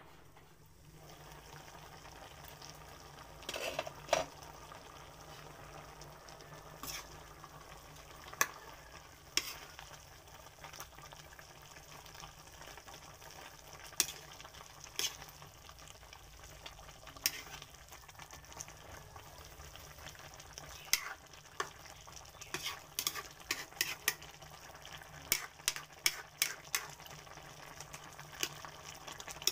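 Pot of chicken pochero broth bubbling on the stove: a steady sizzling hiss with scattered sharp pops and crackles, which come more often in the second half.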